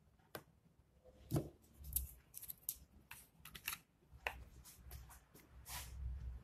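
Faint, scattered taps and clicks of thin MDF slats and a plastic glue bottle being handled and set down on an MDF door panel, with one slightly longer rasp near the end.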